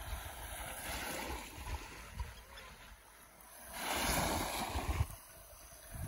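Small sea waves lapping and washing up onto a sandy beach, with one louder wash about four seconds in.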